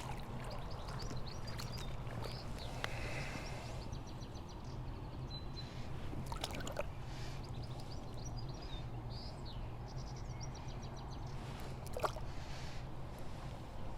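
River water running steadily, with small birds chirping and singing over it; twice a short sharp knock or splash, about six and a half seconds in and again near the end.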